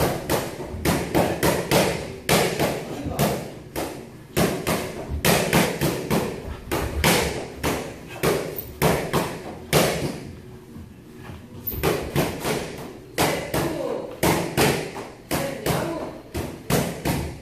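A boxer's footwork thudding and scuffing on a boxing ring's canvas floor while shadowboxing, in quick irregular clusters of short sharp hits, with a brief lull about ten seconds in.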